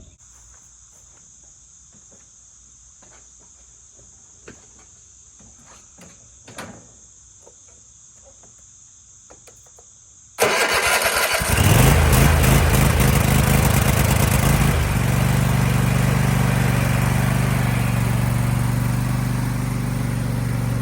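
Crickets chirping steadily, with a few faint clicks. About ten seconds in, the Cub Cadet Ultima ZT1 zero-turn mower's engine cranks on its freshly installed battery, starts within about a second, and runs steadily, its note shifting a few seconds after it catches.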